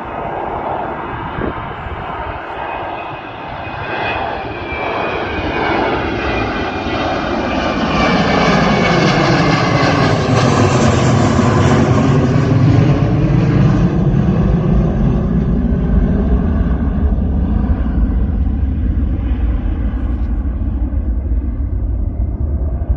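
Airbus A321 jet airliner departing at takeoff power, its engine noise building to a peak about halfway through and then slowly fading as it passes, with a sweeping shift in tone at the closest point.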